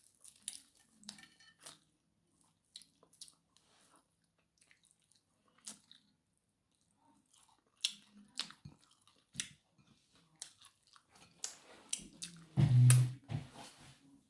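Close mouth sounds of eating fried fish and rice: chewing and lip smacks in scattered short clicks with quiet gaps. About thirteen seconds in there is a louder, deeper noise.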